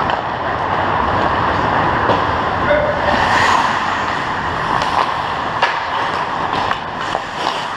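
Ice hockey play on a rink: a steady scraping hiss of skate blades on the ice, broken by a few sharp clacks of sticks and puck.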